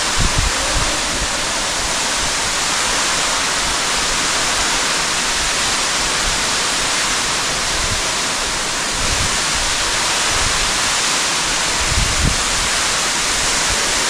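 Steady, loud rush of a tall underground waterfall plunging about 280 feet down a cave shaft and splashing at the bottom. A few brief low thumps sound over it.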